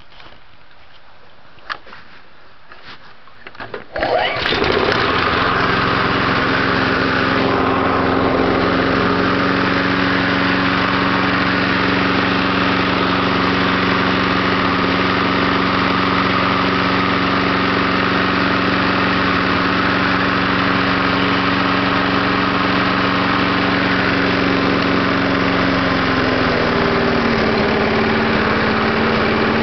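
1995 Power Pro push mower's 5 hp Briggs & Stratton engine cold-started with the pull rope: a few clicks, then it catches about four seconds in and runs steadily. Near the end its speed drops slightly and settles.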